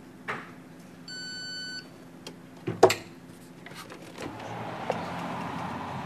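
The kiosk's contactless card reader gives a single steady beep, about two-thirds of a second long, as a phone is tapped on it to pay. A sharp click follows about two seconds in as the fridge door unlocks, then a rising rush of noise as the door is opened.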